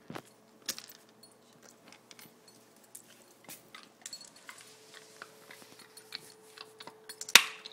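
Dog biting and chewing on a hazelnut in its shell: a run of small clicks and crunches, with one sharp crack near the end.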